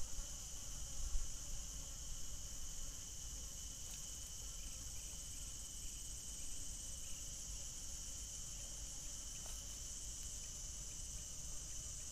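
Steady, high-pitched chorus of insects such as crickets, with a soft knock about a second in.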